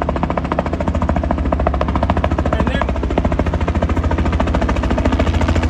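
An engine running steadily, with a fast even pulsing beat and a deep rumble.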